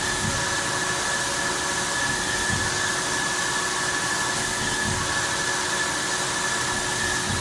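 Fadal VMC4020 vertical machining center running under power: a steady whirring hiss with a constant high whine, and a few faint low swells in the background.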